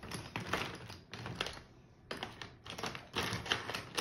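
Marker pens clicking and clattering against each other as they are rummaged through to find a red one, in irregular bursts with a short lull about halfway.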